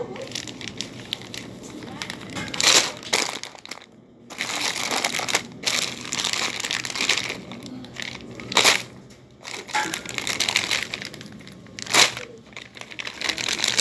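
Plastic bags and grocery packaging crinkling and rustling as the goods are handled, with sharper crackles about three, nine and twelve seconds in.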